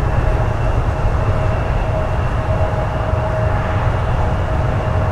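Boeing 767-300's twin jet engines at takeoff thrust as the airliner begins its takeoff roll: a loud, steady roar with a steady whine held through it.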